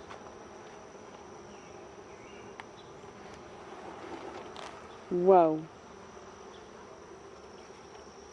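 Honeybees buzzing around an open hive during a frame inspection: a steady, even hum of many bees.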